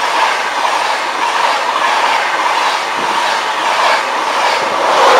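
An InterCity 225 express (Mark 4 coaches) passing through the station at speed: a loud, steady rush of wheel and air noise with clickety-clack of the wheels over the track, swelling slightly near the end.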